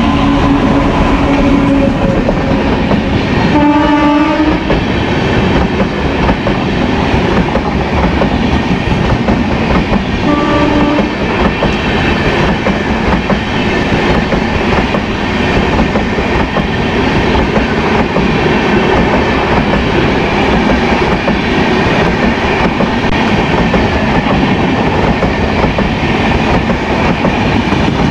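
Indian Railways express train with ICF coaches passing at speed, hauled by a WAP-7 electric locomotive: the locomotive's horn sounds three times, the first blast already going and ending about two seconds in, another about four seconds in and a short one near eleven seconds. After that the coaches roll past with a steady clickety-clack of wheels over rail joints.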